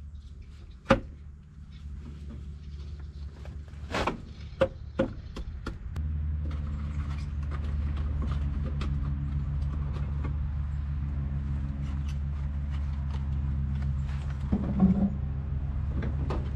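Infiniti G35's V6 engine idling steadily after a timing chain replacement, a low even hum that gets louder about six seconds in. A few sharp knocks and clicks of hands and parts in the engine bay come in the first five seconds, the loudest about a second in.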